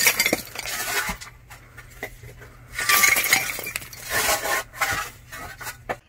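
Pieces of a shattered ceramic washbasin clattering and clinking against each other in several bursts.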